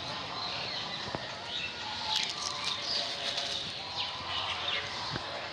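Birds chirping here and there over steady outdoor background noise, with a couple of faint clicks about a second in and near the end.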